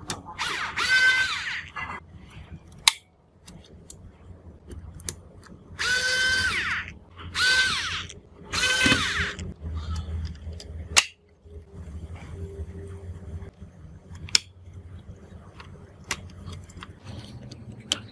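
Cordless electric screwdriver whirring in short bursts, one near the start and three in quick succession a few seconds later, as it backs screws out of a plastic cassette-deck housing. Later come scattered sharp clicks and knocks of plastic parts being pried loose and handled.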